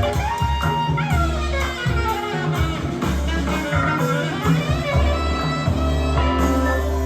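Recorded music played back from tape on an Akai GX-9 cassette deck, with a strong bass line under gliding melody notes.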